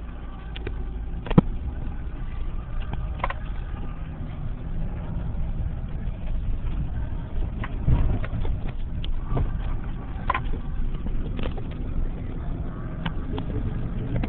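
Honda Element's four-cylinder engine and drivetrain running steadily, heard from inside the cabin as it drives over a sandy, rutted dirt trail. A low rumble carries through, with scattered knocks and rattles from the bumps; the sharpest knock comes about a second and a half in.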